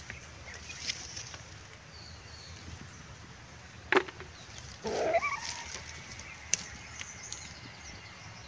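Hand-picking sounds among coffee bushes: light clicks and rustles of branches and cherries, and a sharp knock about four seconds in as the phone is handled. About a second later comes a short call-like sound with a wavering pitch.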